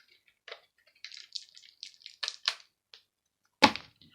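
Light clicks and taps of a small plastic electronic device's casing and parts being handled and pried apart, with one louder knock about three and a half seconds in.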